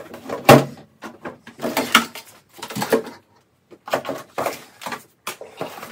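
Items being taken out of and put back into a bathroom vanity drawer: a sharp knock about half a second in, then a run of clatters, bumps and rustles of packaging.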